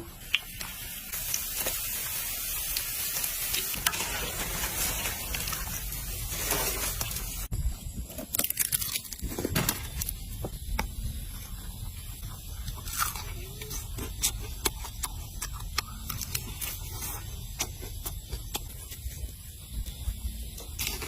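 Food being cooked and handled: an even hiss like sizzling for about six seconds, cut off suddenly, followed by scattered clicks and scrapes of kitchen utensils.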